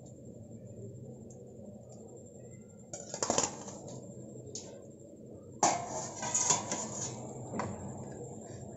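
Wire spider strainer clinking and clattering against a stainless steel plate as fried egg bondas are tipped onto it. There is a short clatter about three seconds in and a longer run of clinks from about halfway to near the end, over a low steady hum.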